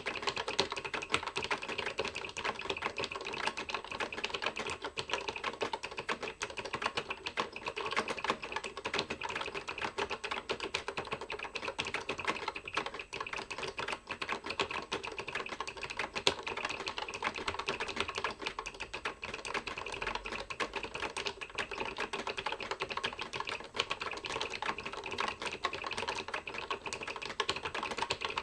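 Typing on a Siemens PC16-11 keyboard: a fast, continuous stream of key clicks and clacks as keys are struck one after another without a break.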